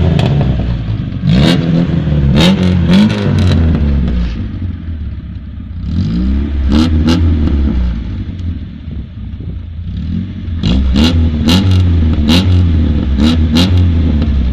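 VAZ 2106 inline-four engine revving through a homemade straight-through exhaust, in three bursts of throttle blips with quieter idling between. Sharp cracks come with several of the blips.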